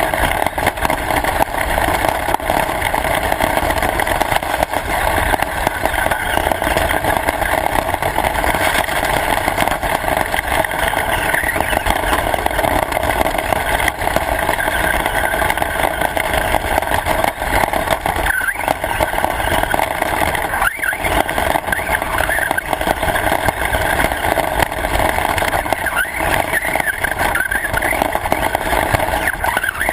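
Radio-controlled car running continuously: a loud, steady, dense whir and rattle from its motor and drivetrain.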